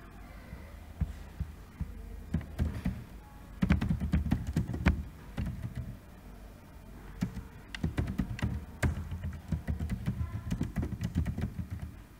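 Typing on a computer keyboard: two runs of quick key clicks, with a short pause about six seconds in.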